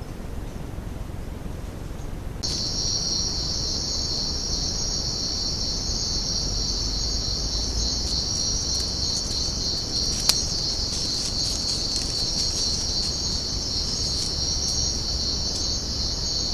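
High, steady insect chorus that starts abruptly about two seconds in, with one sharp click about ten seconds in.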